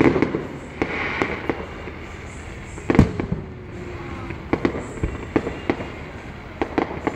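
Fireworks and firecrackers going off: a run of irregular bangs and pops, the loudest about three seconds in.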